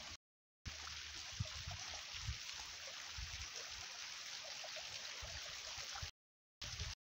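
Steady rushing hiss of flowing stream water, with scattered low thumps. The sound cuts out briefly just after the start and again near the end.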